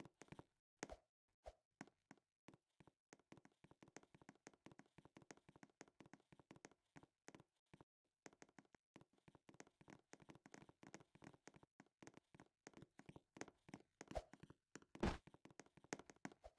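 Faint, rapid, irregular tapping and clicking, several a second, with a louder knock near the end.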